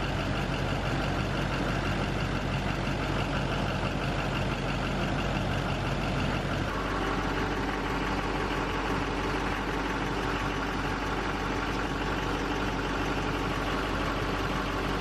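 6.6L Duramax V8 turbodiesel idling steadily after a fuel filter change and priming, run to check the new filter for leaks. The tone of the idle shifts about seven seconds in.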